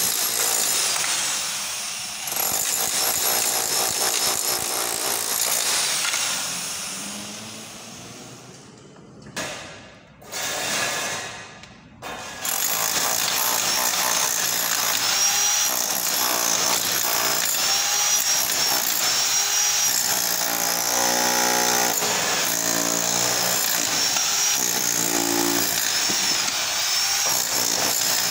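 Corded electric demolition hammer chiselling plaster and brick off a wall, hammering steadily. It trails off about a quarter of the way through, gives a couple of short bursts, then runs steadily again from a little before the middle onward.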